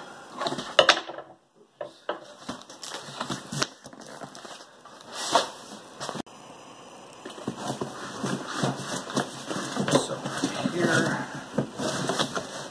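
A cardboard shipping box being opened: packing tape crackling and tearing as it is pulled off, with irregular knocks and scrapes of the cardboard.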